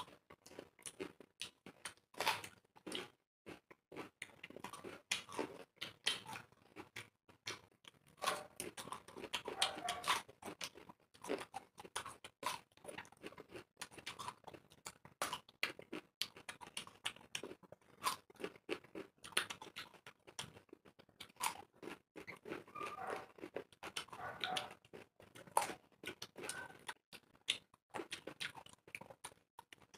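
Close-up eating of fresh fruit, grapes and a crisp Thai jujube (ber): a steady run of short, irregular wet crunches and mouth clicks from biting and chewing.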